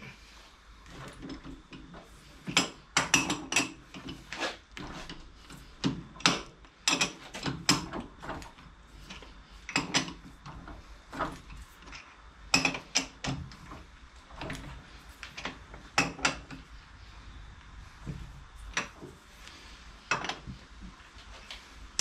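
Irregular metallic clinks and knocks in short clusters as the cam locks on a D1-8 lathe spindle are loosened to take off a four-jaw chuck, with the chuck turned by hand between them.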